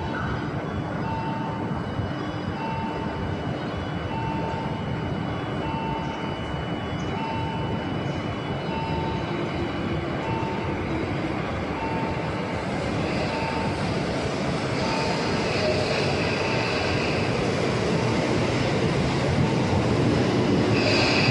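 Tobu 10030 series electric train approaching and pulling into the station, its running noise growing louder through the second half, with high squeals from the wheels and brakes at about 15 seconds and again near the end. In the first half a warning tone beeps on and off about once every second and a quarter.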